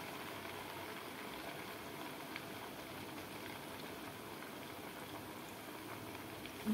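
Sabudana (sago) tikkis deep-frying in hot oil in a kadhai: a steady sizzling of vigorously bubbling oil.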